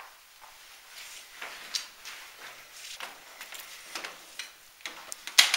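Scattered handling noises, rustles and soft clicks and knocks, as a laptop and equipment are moved about, with one louder sharp clatter near the end.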